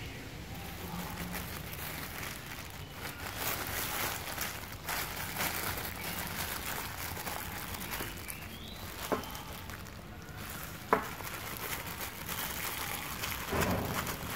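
Thin plastic bag crinkling and crackling as it is wrapped and twisted tight around a small ball by hand, with two sharper clicks past the middle.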